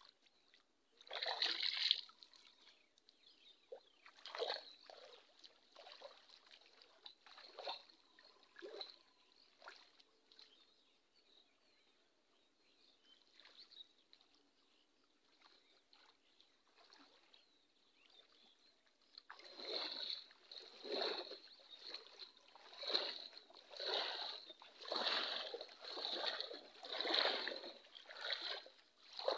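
A person wading through shallow water, splashing and sloshing: one splash about a second in, scattered sloshes over the next several seconds, then steady wading splashes about once a second over the last ten seconds.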